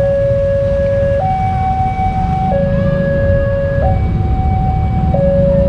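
Railway level-crossing warning alarm sounding a two-tone electronic signal, a lower and a higher tone alternating about every 1.3 seconds, which warns that a train is approaching. Under it runs a steady low rumble.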